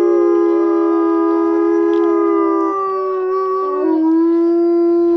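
Several timber wolves howling together in chorus: long, steady, overlapping howls at different pitches. The lowest howl drops a little in pitch about three seconds in, then rises again about a second later.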